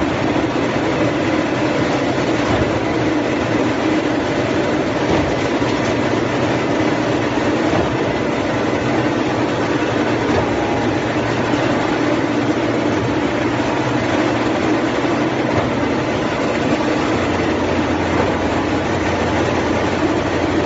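Wood veneer peeling line running: the rotary veneer lathe and the belt-conveyor veneer stacker make a loud, steady machine din with faint steady tones.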